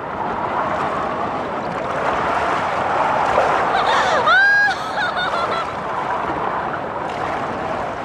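Film soundtrack of a stormy sea: a steady rush of breaking waves and surf, with one high, held cry about four seconds in.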